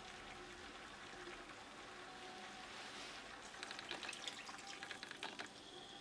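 Water poured from a metal measuring cup into a pot of spiced chicken pieces, splashing and trickling for about two seconds a little past the middle.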